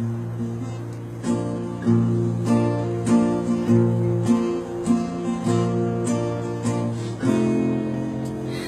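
Acoustic guitar playing a strummed chord intro, a stroke about every half second or so, with no voice yet.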